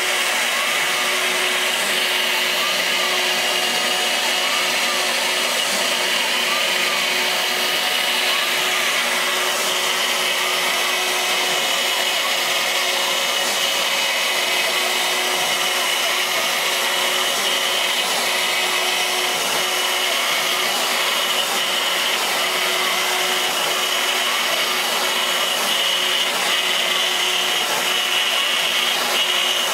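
CNC router spindle running steadily with a high whine while a small end mill cuts circles into a wooden sheet. A fainter tone rises and falls about every two seconds as the machine moves.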